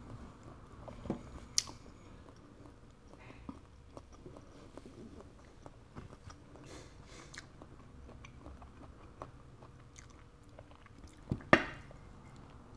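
A person chewing and biting on chewy conch (sea snail) meat, with scattered light clicks as the shells and a pick are handled. A sharp knock about eleven seconds in is the loudest sound.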